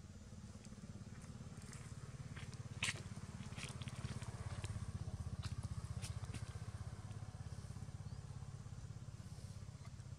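Steady low rumble with scattered light clicks and crackles; the sharpest click comes about three seconds in.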